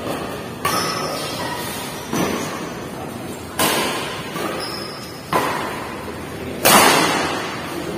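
Badminton rackets hitting a shuttlecock in a doubles rally: five sharp strikes about one and a half seconds apart, each ringing on in a large hall. The last one, near the end, is the loudest.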